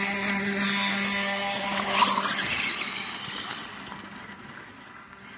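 Electric motor of a Reely RC dirt bike whining at a steady pitch, then a squeal and a short rising whine about two seconds in as it accelerates away. The sound fades from about three and a half seconds in.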